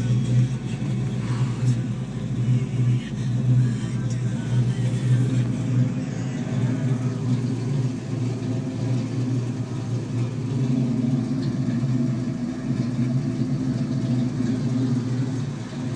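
Ford Mustang's 302 V8 engine idling steadily.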